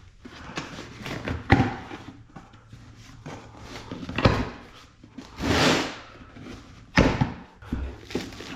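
Handling of a shipping box and its packaging as it is opened: scattered knocks and thumps, three of them sharp, and a short rustle a little past the middle.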